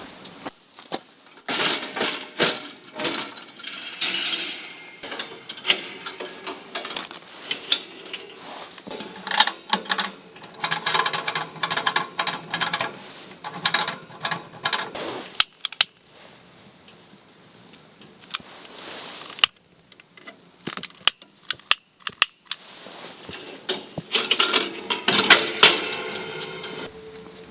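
Small objects being handled: an irregular run of clicks, clinks and knocks mixed with rustling, in busy stretches with quieter pauses between them.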